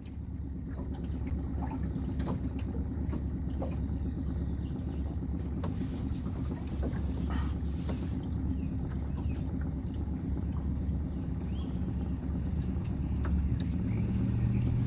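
Small motorboat's engine running steadily while the boat is underway, a little louder near the end.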